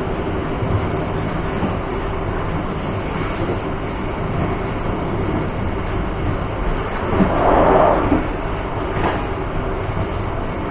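Malioboro Ekspres passenger train running along the line, heard from on board: a steady rumble and rattle of the carriage on the rails, with a brief louder rush about seven seconds in.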